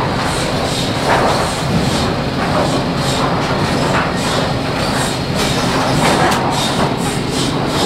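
Loud, steady din of sawmill machinery: chain transfer conveyors and rollers running on a lumber deck, with a low hum underneath and a few brief louder knocks.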